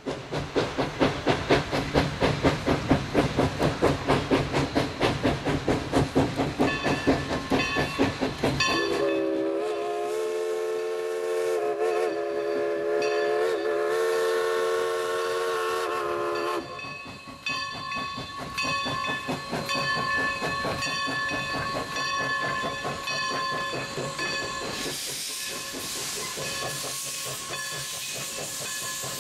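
Everett Railroad No. 11, a 1920 Alco 2-6-0 Mogul steam locomotive, chuffing fast and evenly as it passes. About nine seconds in, its steam whistle sounds one long blast of about seven seconds. The bell rings on after the whistle, and a hiss of steam grows near the end.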